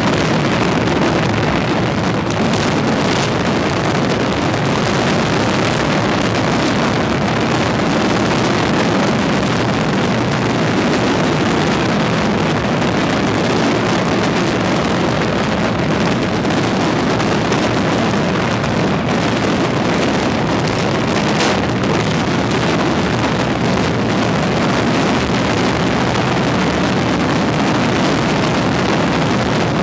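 Massed fireworks barrage, many shells and fountains firing at once so that the bursts merge into a steady rumble, with a few sharper cracks standing out.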